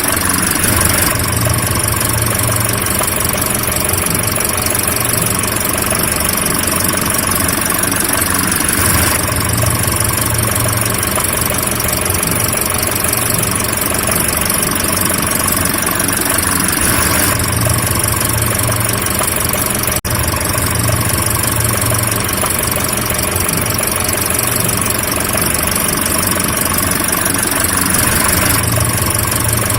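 Car engine idling steadily, its low hum swelling slightly about every eight seconds, with one brief dropout about twenty seconds in.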